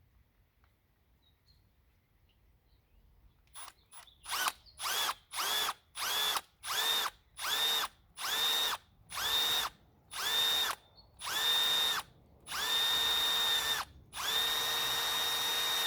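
Electric drill with a 1/8-inch bit drilling a weep hole through an aluminum pull-starter casting: starting about three and a half seconds in, about a dozen short trigger pulses, the motor whine rising in pitch each time it spins up, then two longer steady runs near the end.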